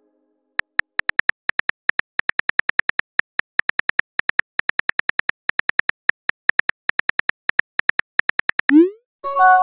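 Simulated phone keyboard clicks, rapid and uneven at about six a second, as a text message is typed. Near the end a short rising swoop and a chime play as the message is sent.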